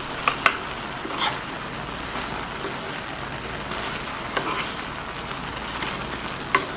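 Shrimp in a shallow sauce sizzling and bubbling steadily in a small pan on an electric hot plate. A metal spoon stirs them, clicking against the pan a few times.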